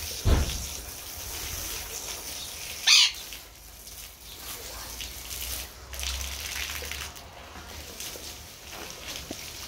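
Water splashing and trickling on wet patio tiles as a dog is washed and scrubbed, with a short sharp high-pitched sound about three seconds in.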